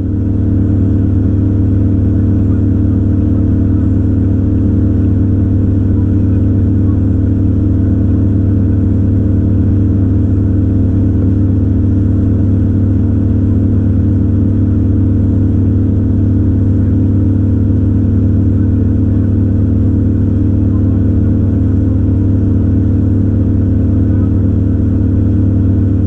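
Single 250 hp outboard motor running steadily at high cruising speed, pushing the boat on plane.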